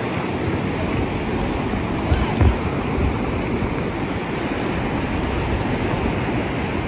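Ocean surf washing in over the sand and breaking nearby, a steady rushing wash of water, with a few low gusts of wind on the microphone about two seconds in.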